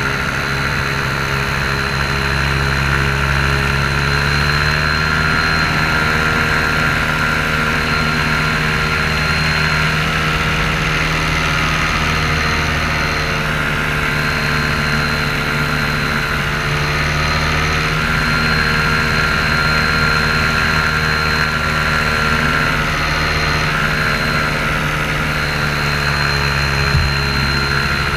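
Paramotor engine and propeller running steadily close to the microphone, the pitch rising a little about four seconds in and dipping then coming back up near the end as the throttle is worked.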